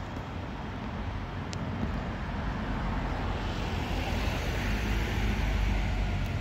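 Low rumble of an approaching train on the main line, growing steadily louder, with a rising hiss joining it about four seconds in.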